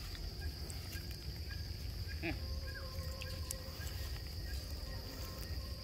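Insects droning steadily at one high pitch, over a low outdoor rumble, with a few faint short calls in the background.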